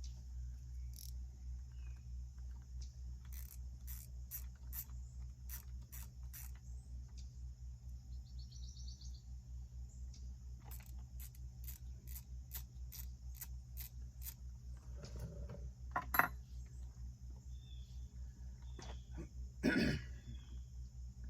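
Scattered sharp clicks and two louder knocks over a steady low hum, typical of small parts and tools being handled.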